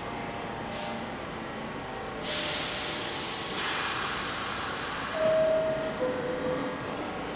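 R62A subway train standing in the station: a hiss of air starts about two seconds in, then about five seconds in the door chime sounds two notes stepping down, the signal that the doors are about to close.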